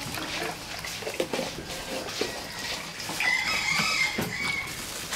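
A rooster crows once, a long call starting about three seconds in, over small splashes and clatter of water being handled.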